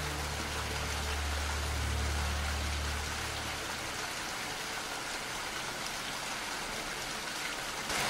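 Steady rain, an even hiss of falling drops. A low steady hum underneath stops about halfway through.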